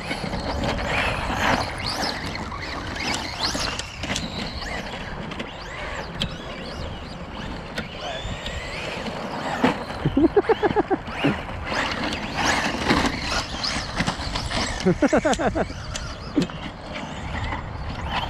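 Electric motors of Traxxas Slash VXL RC trucks whining up and down in pitch as they speed up and slow down on the track, with two bursts of rapid rattling about ten and fifteen seconds in.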